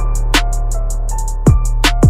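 Background music with a steady drum-machine beat: quick high hi-hat ticks, a deep kick drum twice, and held bass and keyboard notes.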